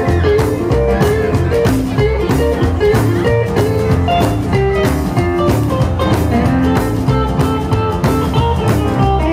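Live rock-and-roll band playing an instrumental passage without vocals: electric guitar leading over upright bass and drums with a steady beat.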